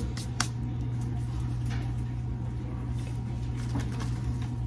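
Soft kitchen handling sounds over a steady low hum: a few short clicks near the start, then faint rustles and ticks while salad ingredients are worked by hand.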